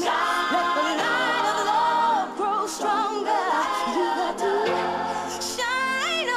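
Background music: a song with several voices singing together in harmony.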